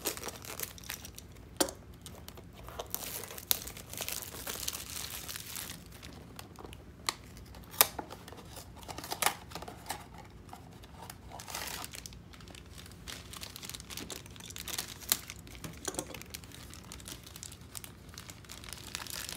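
A Funko Mystery Mini blind box opened by hand: cardboard flaps pulled open, then the black foil bag inside crinkled and torn open. Continuous rustling with scattered sharp clicks.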